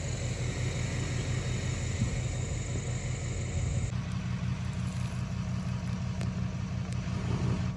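A vehicle engine idling, a steady low rumble whose tone shifts slightly about four seconds in.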